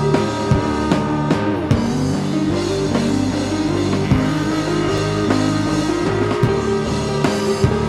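Alternative rock song playing, with a full band: drum kit strikes over sustained guitar chords.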